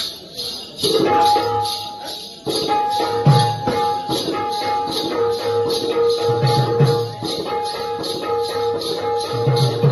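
Live Jakhadi folk dance music: small hand cymbals jingle a steady beat of about three strikes a second over drum strokes, with a held melodic tone that comes in about a second in.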